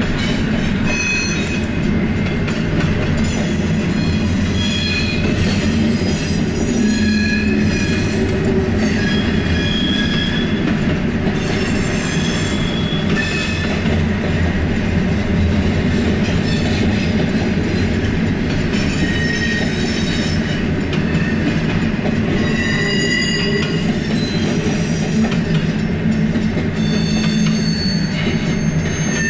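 Intermodal freight train cars rolling past close by: a steady low rumble of wheels on rail, with high-pitched wheel squeals coming and going throughout.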